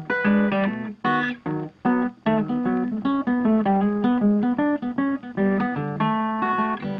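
Background music: a quick plucked-guitar melody with many short, rapid notes.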